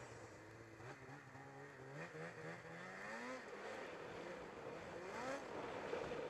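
Snowmobile engine, a newly built 858 being broken in, revving up and down repeatedly as the throttle is worked through tight turns.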